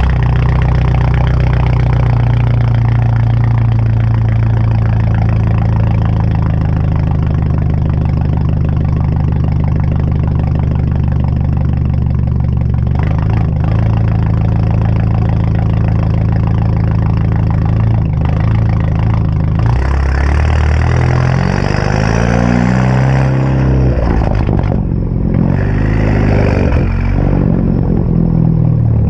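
BMW 328i's turbocharged four-cylinder engine idling after a cold start through an M Performance catback exhaust with the muffler and resonator deleted and an aftermarket downpipe. It is revved twice, about 20 and 25 seconds in, and drops back to a steady idle each time.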